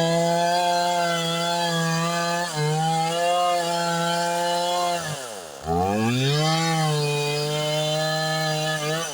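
Two-stroke chainsaw running at full throttle while cutting wood, its pitch sagging slightly under load. About five seconds in the throttle is let off and the engine drops toward idle, then revs straight back up to full speed.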